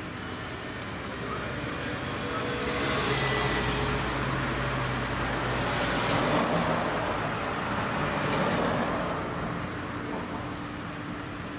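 A motor vehicle passing, a broad rumbling noise that swells over a few seconds and then fades.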